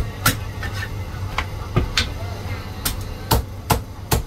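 Heavy Chinese cleaver chopping through a cooked, bone-in chicken on a thick round wooden chopping block: about nine sharp chops at uneven intervals. A steady low hum runs underneath.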